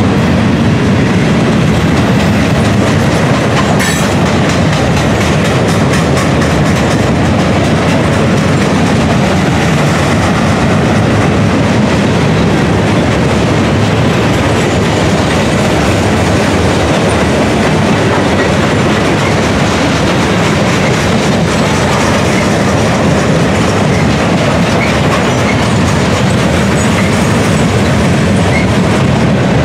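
Freight train of gondola cars rolling past close by: a steady, loud wheel-and-rail noise, with a sharp click about four seconds in.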